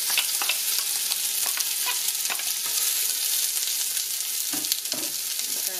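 Chopped onion sizzling steadily in hot olive oil in a pot, with a wooden spoon clicking and scraping against the bowl and pot now and then.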